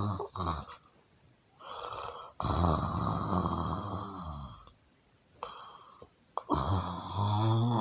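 A person snoring loudly in drawn-out snores, each a low, rattling buzz. A short snore comes about one and a half seconds in, then a longer one lasting about two seconds, and another begins near the end.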